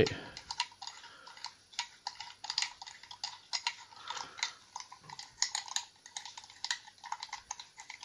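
Dial of a cheap combination padlock being turned by hand, its mechanism giving a quiet, irregular run of small clicks and ticks.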